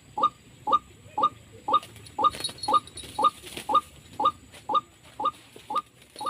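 A bird call repeated as a short falling note about twice a second, evenly spaced throughout. This is the kind of call used to lure birds in pikat trapping. A faint hiss or rustle rises behind it around the middle.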